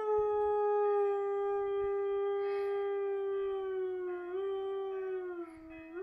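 An Afghan hound sings one long, steady howl that slowly sinks in pitch and wavers briefly near the end. Underneath it the church bells ring faintly.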